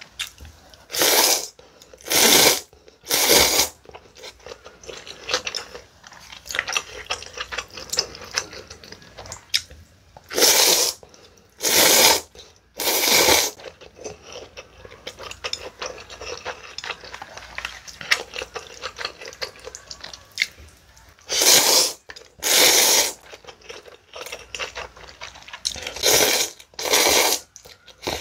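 Loud slurps of cold buckwheat noodles (naengmomil) sucked up from the bowl, about ten in all, in four groups of two or three. Fainter crackling mouth sounds come between the groups.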